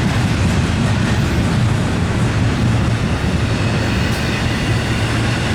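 Long double-stack intermodal freight train's container cars rolling past at a steady speed, a continuous loud noise of steel wheels running on the rails.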